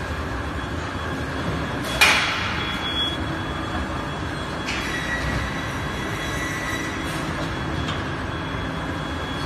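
Electric rail transfer cart loaded with metal racks of boards rolling along its track, a steady rumble, with a sharp metallic clang about two seconds in and a faint high whine for a couple of seconds in the middle.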